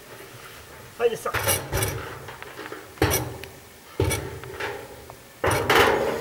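Knocks and clatter of an automatic game feeder's drum and dispenser being shifted and bumped against the tree trunk while it is hung in place. There are about four bursts a second or so apart, and the longest rattle is near the end.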